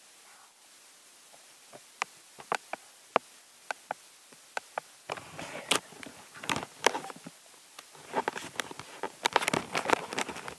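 Handling noise on a phone or tablet microphone: fingers and skin tapping and rubbing on the device, first as scattered sharp clicks, then as dense crackling and scratching from about five seconds in.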